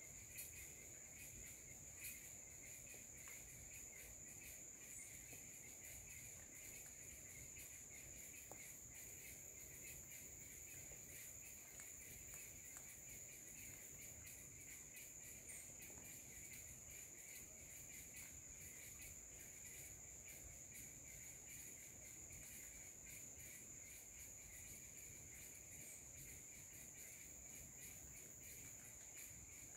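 Faint, steady chorus of insects: a continuous high-pitched trill with a weaker, lower band beneath it.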